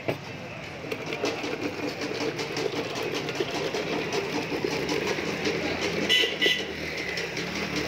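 Night street traffic dominated by a small engine running with a fast, steady rattle, with motorbikes passing; a short double beep about six seconds in.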